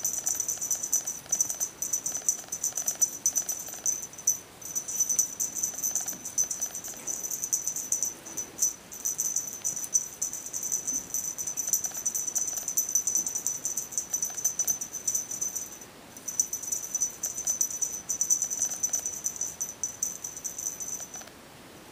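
Feather wand cat toy with shiny metallic strands being shaken and waved, giving a dense, rapid high-pitched rattle and crinkle that breaks off briefly and stops shortly before the end.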